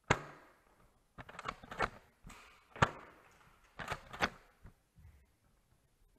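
Sharp clacks and snaps from a Nerf Delta Trooper blaster being worked and fired, about a dozen in quick clusters, the loudest a little before the middle.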